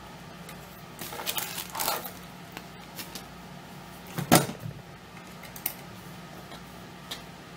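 Small hand-work noises from taking apart a laptop screen: scraping and rustling about a second in, one sharp knock a little past halfway, then a couple of light clicks.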